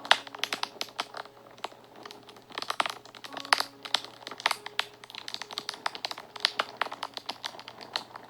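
Wood fire crackling and popping in quick irregular snaps, the sharpest pop just after the start. Soft, sustained notes of background music sit faintly underneath.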